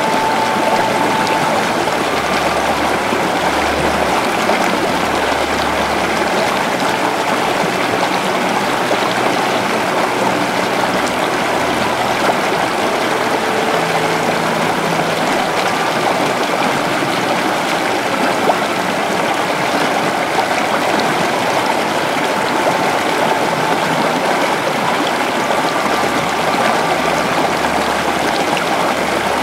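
Steady rushing water like a stream or small waterfall, with faint held tones of soft ambient music underneath.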